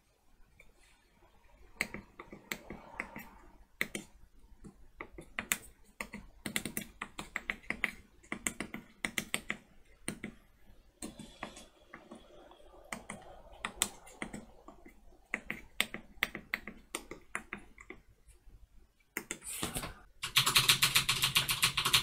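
Tactile push-button switches on a hex matrix keypad clicking as keys are pressed one after another at an uneven pace, sometimes in quick runs. Near the end comes a louder burst of rapid, evenly spaced clicking lasting about two seconds.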